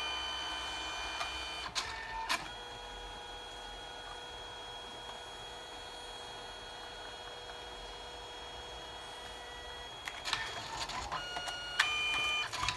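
Canon Selphy CP1300 dye-sublimation photo printer running its paper-feed motor during the final protective-coating pass. A whine and a click, then a steady even hum as the paper is drawn through, then more whirring and clicking near the end as the finished print is pushed out.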